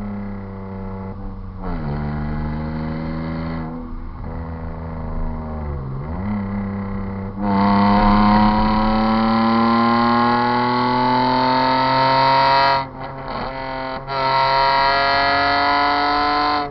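BMW E36 328i's M52TU 2.8-litre straight-six running through a straight-piped exhaust with no mufflers. The revs first fall back, then the engine pulls under load with the pitch rising slowly and the sound getting louder about seven seconds in. It lifts off sharply twice, about 13 seconds in and near the end, and picks up pulling again each time.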